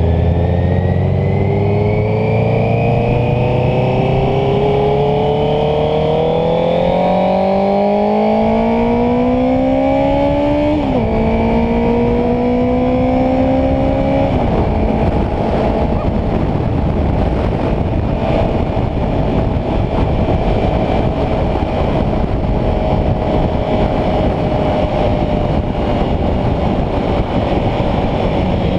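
Honda CBR650F's inline-four engine accelerating, its pitch rising steadily, then dropping sharply at two upshifts about eleven and fourteen seconds in before it holds a steady cruise. Heavy wind noise on the microphone grows over the cruise.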